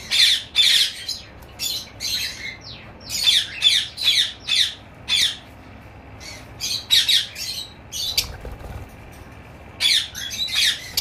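Small caged parrots giving many short, harsh screeching calls in quick clusters, with quieter spells about six and nine seconds in. These are the alarm calls of breeding birds with eggs and chicks, frightened by a person near the cages.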